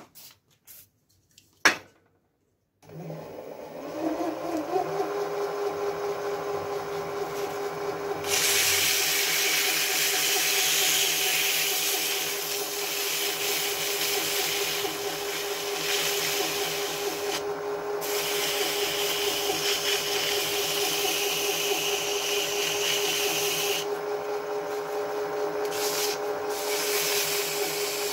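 A metal lathe is switched on after a sharp click, spins up about three seconds in and runs at a steady hum. From about eight seconds in, abrasive cloth is pressed against the spinning part to polish it, giving a loud steady hissing rub that stops briefly a few times when the cloth is lifted.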